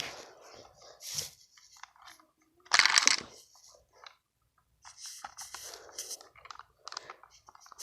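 A homemade Lego candy dispenser being worked: plastic clicks and rattling as the lever moves, with a loud burst of rattling about three seconds in as the candies spill out together. Smaller clatters follow.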